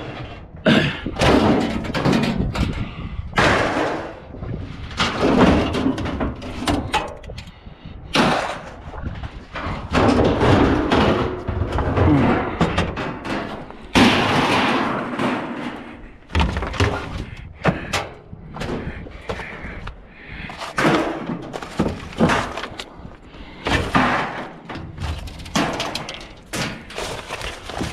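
Scrap sheet-metal appliance casings and panels being pulled off a trailer and thrown onto a scrap pile: repeated irregular bangs, slams and clatters of thin metal, one every second or two.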